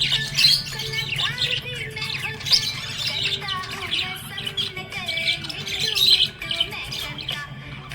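Budgerigars chirping and squawking in a rapid, continuous stream of short, high, quickly gliding chirps, over a steady low hum.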